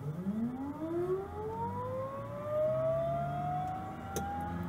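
Pilatus PC-12NG's Pratt & Whitney PT6A-67P turboprop being cranked on its starter: a steadily rising whine as the gas generator spools up, before fuel is introduced. A single sharp click about four seconds in.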